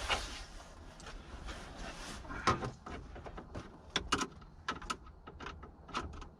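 Scattered clicks and light knocks of plastic console trim and screws being handled, with rustling in the first second.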